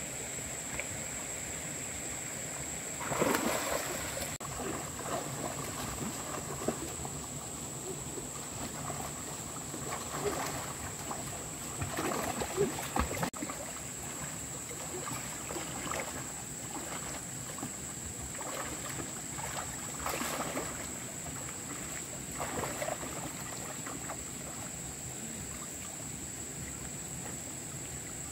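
Hands splashing and sloshing in shallow stream water while groping for fish, in irregular bouts, loudest about three seconds in. A steady high-pitched tone runs underneath.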